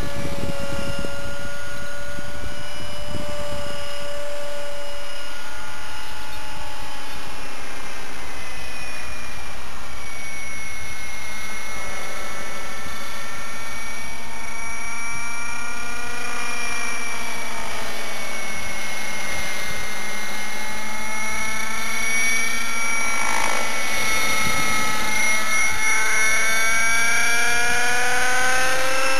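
RC nitro helicopter's O.S. 50 Hyper two-stroke glow engine with a Hatori performance muffler running in flight: a steady high-pitched whine whose pitch dips and climbs again several times as it manoeuvres.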